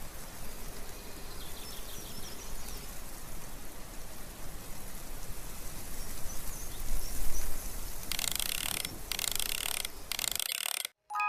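Outdoor ambience: a steady hiss with faint high chirps of birds or insects, then three short bursts of louder rustling hiss near the end.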